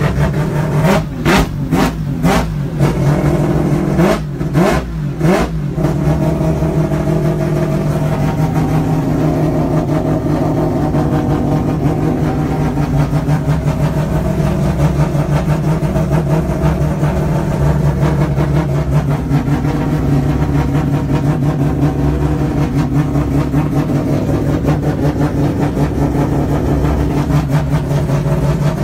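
Rotary engine of a drift car running with a steady, lumpy rumble, heard from inside the cockpit. A string of sharp pops comes in the first few seconds, then the engine runs on steadily.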